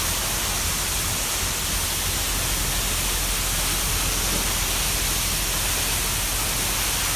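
Large waterfall plunging down a rock face into the sea: a loud, steady, unbroken rush of water.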